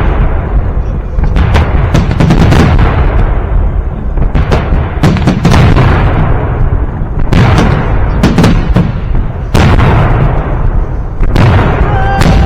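Victory Day fireworks salute: a string of loud booms from salute volleys and firework bursts, coming roughly every half second to two seconds, each trailing off in echo over a continuous low rumble.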